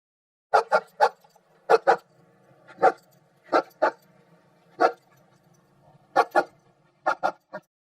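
A dog barking in short, sharp barks, coming in quick clusters of one to three, about fourteen in all.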